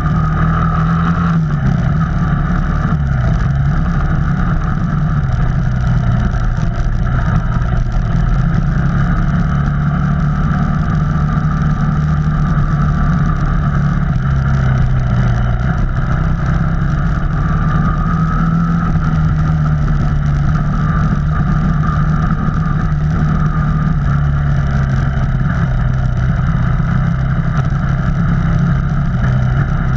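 Off-road vehicle engine running steadily under way on a trail, its pitch rising and falling gently with the throttle.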